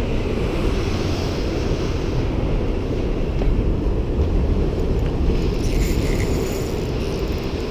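Steady wind buffeting the microphone over breaking ocean surf.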